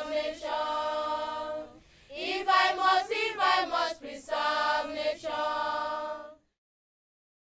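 A group of children singing together without instruments, a conservation song with the line 'if I must, preserve nature', in long held notes. It breaks briefly about two seconds in and stops suddenly near the end.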